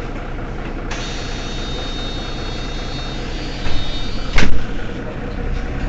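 Mercedes-Benz Citaro city bus engine idling steadily while the bus stands. About a second in, a high-pitched whine joins it and holds for about three seconds. A sharp, loud clunk comes near the end of the whine.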